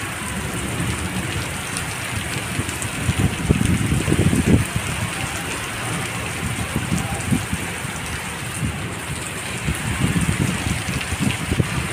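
Heavy monsoon rain pouring steadily onto a street and paving, with louder, low surges about three to five seconds in.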